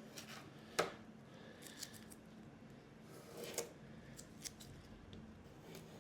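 Sparse sharp clicks and scrapes of small hand work on the glider. The loudest comes a little under a second in, and smaller ones follow about three and a half and four and a half seconds in.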